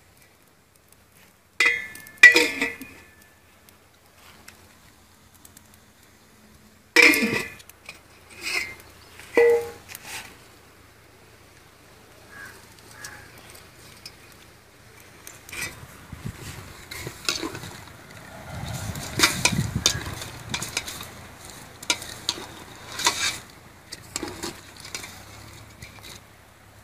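Aluminium cooking pot and ladle clanking: a few sharp, ringing metal knocks in the first ten seconds, then a long run of clatter and scraping as a ladle stirs chicken pieces in the pot.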